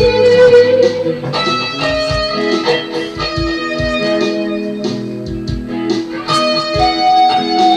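Electric guitar played lead, moving between held notes, over a steady low beat and bass line.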